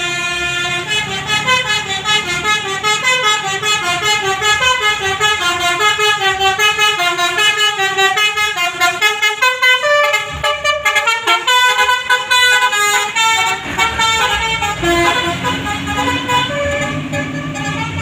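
Basuri telolet bus horn playing a melody: a fast run of short notes stepping up and down, turning to longer held notes near the end, over the low rumble of the bus.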